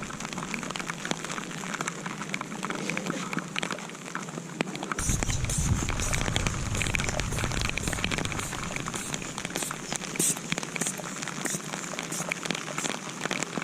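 Steady rain falling, with scattered sharp taps of drops. About five seconds in, a low rumble joins and runs on under it.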